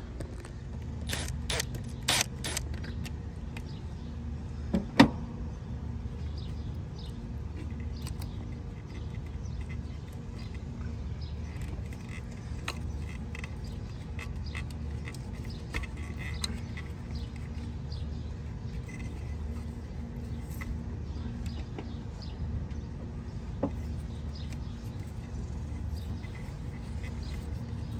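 Scattered small metallic clicks and clinks of hands and tools working the idle air control valve loose in a Volvo 940's engine bay, with a sharp click about five seconds in, over a steady low rumble of wind on the microphone.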